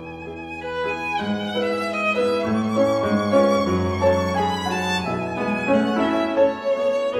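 Music: a violin playing a slow melody with vibrato over lower sustained accompaniment.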